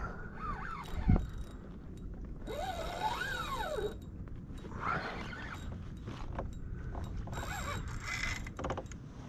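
Spinning reel being cranked in several spells, its gear whine rising and falling in pitch as the handle speeds up and slows down. A single sharp knock about a second in.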